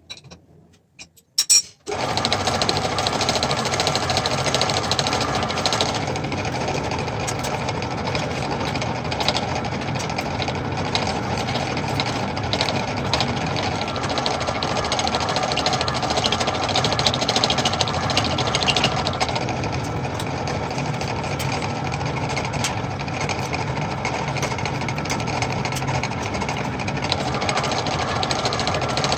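Metal lathe running with a dense, steady mechanical clatter that starts suddenly about two seconds in, after a couple of sharp clicks.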